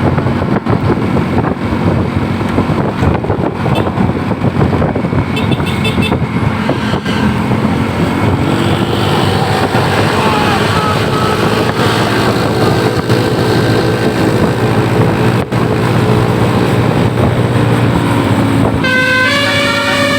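Bus engine and road noise, with gliding tones in the middle. Near the end the bus's multi-trumpet basuri 'telolet' horn starts playing a stepping melody.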